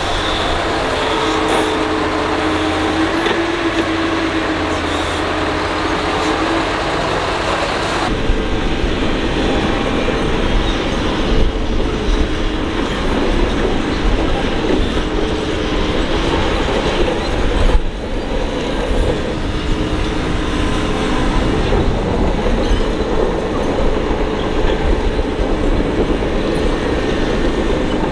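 Doosan DX225LC excavator working: diesel engine and hydraulics running steadily under load, with a clattering, clanking undertone. The sound changes abruptly about eight seconds in.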